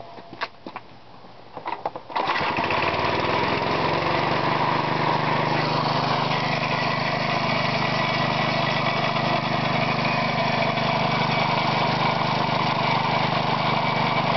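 Air compressor rig built from a Briggs & Stratton 3.5 hp push-mower engine, its head gasket removed to raise compression, starting abruptly about two seconds in and then running steadily while it builds pressure in the tank. A few light clicks and knocks come before it starts.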